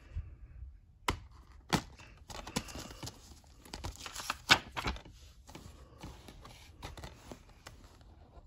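Blue plastic Blu-ray case being handled and opened: a run of sharp plastic clicks and rustles, the loudest click about four and a half seconds in.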